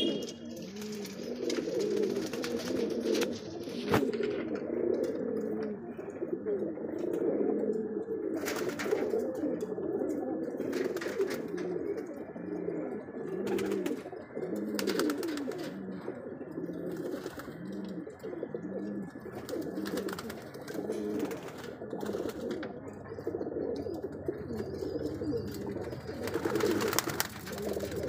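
A loft full of domestic pigeons cooing continuously, many low coos overlapping and repeating, with a few brief sharp noises over the cooing.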